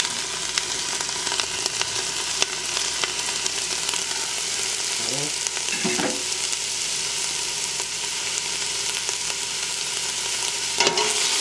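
Chopped onion, celery, bell pepper and poblano pepper frying in hot olive oil in a stainless steel pot: a steady sizzle with scattered small crackles.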